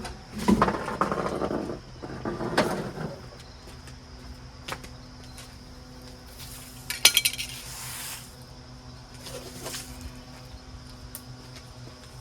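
Clinking and clattering of small hard objects being handled, loudest in the first three seconds and again in a short burst about seven seconds in, over a faint steady low hum.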